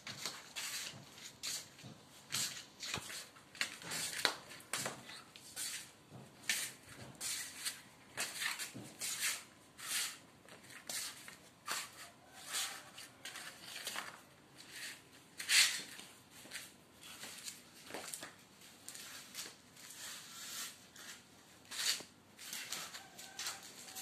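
Footsteps of sandals on a hard floor: irregular scuffing steps, about one or two a second.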